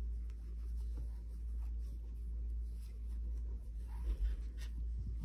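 Soft rustling and rubbing of yarn between fingers as a double knot is tied in black yarn on a crocheted amigurumi head, over a steady low hum.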